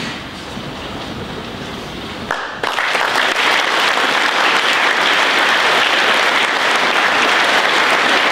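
A large audience clapping, breaking out suddenly about two and a half seconds in and holding steady. Before it, only a quieter, lower background noise.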